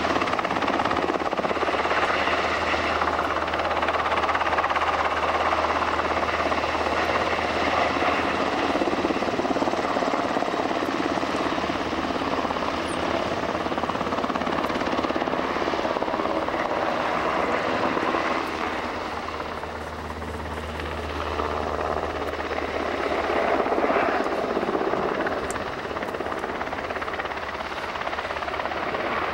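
JASDF UH-60J rescue helicopter flying past, its main rotor and twin turboshaft engines running steadily. The sound dips about two-thirds of the way through as it turns away, then swells again.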